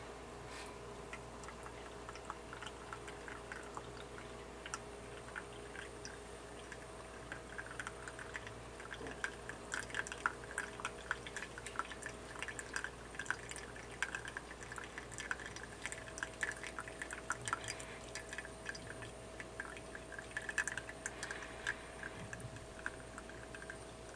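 Brewed coffee dripping from a flannel filter into a glass server as the coffee bed drains between pours: a quick, irregular patter of small drips that grows busier after the first few seconds.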